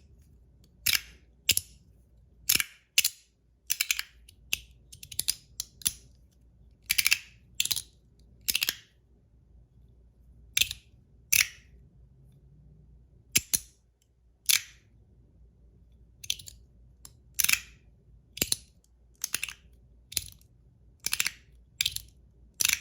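Ant Design S-Nano magnetic fidget slider in zirconium being slid back and forth, its magnets snapping the slide into place with sharp clicks, roughly one to two a second and often in close pairs. The slide is zirconium running on stainless steel, which the owner believes makes it smoother.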